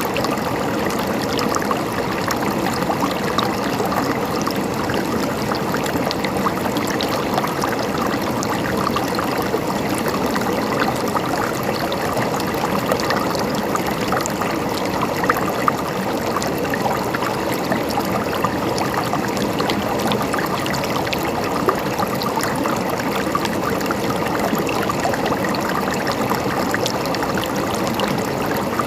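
Stream water flowing and trickling steadily, with a constant gurgle of small splashes and no pauses.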